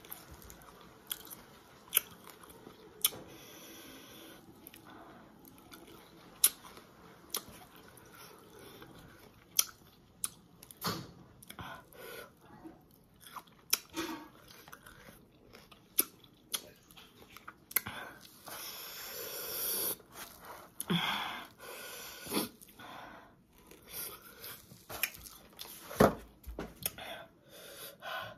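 Close-up chewing and biting of juicy Marian plum (maprang) slices, with sharp crunches and wet mouth clicks at irregular intervals.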